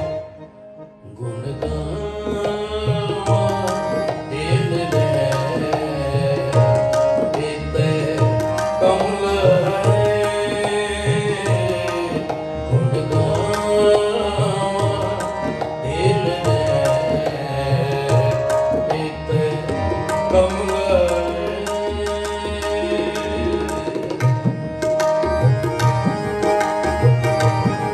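Sikh kirtan: harmoniums and tabla playing a shabad, with the ragis' voices singing at times. The music drops away briefly about a second in, then carries on steadily.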